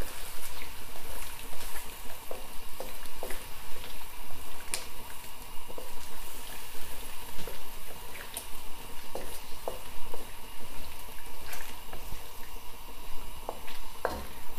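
Soy-sauce liquid bubbling in a wok as it comes to the boil, with irregular small pops and a spatula stirring through the chicken and potato pieces.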